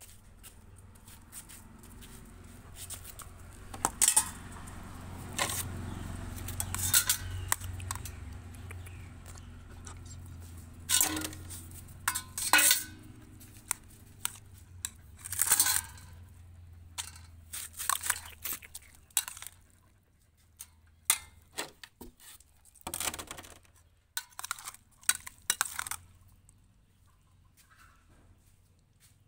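Irregular clinks, clatters and scrapes of dishes and food containers being handled as dog food is dished out, with a low hum underneath for the first half.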